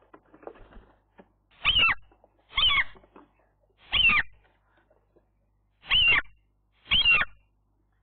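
Common gull calling: five short, high calls, each sliding down in pitch, about a second apart with a longer pause before the last two. Faint scratching sounds in the first second.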